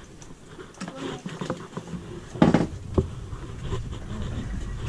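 A hooked lookdown (moonfish) knocking and flapping against a fibreglass boat as it is swung aboard. Scattered light knocks, with one louder thump about two and a half seconds in.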